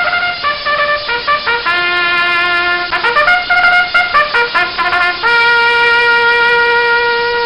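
A short brass-sounding melody played as a meme sound effect: a run of quick notes, then one long held note from about five seconds in.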